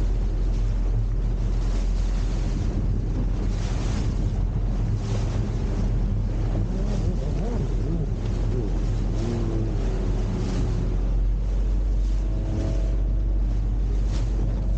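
Fairline Targa 38 motor cruiser underway: a steady low engine drone mixed with the rush of water, under wind noise on the microphone.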